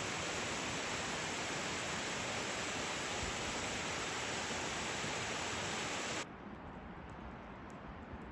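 Steady rush of Snoquera Falls, a waterfall, cutting off abruptly about six seconds in to a quieter, duller rush of water.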